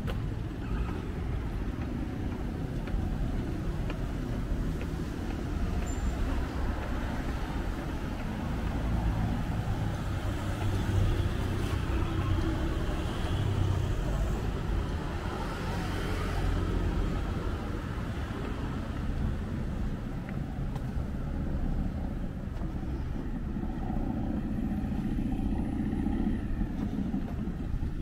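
Road traffic on a city street, a steady rumble with a vehicle passing close and growing louder about ten to seventeen seconds in.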